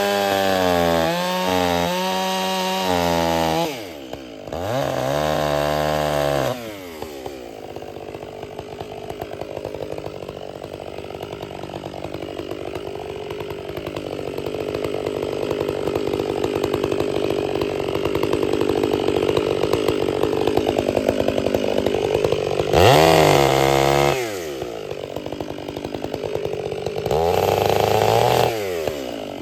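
Two-stroke chainsaw revving at high throttle and easing off twice. It then runs for a long stretch at lower speed with a rough, slowly growing noise, as if bogged down cutting through wood, before two more high revs near the end.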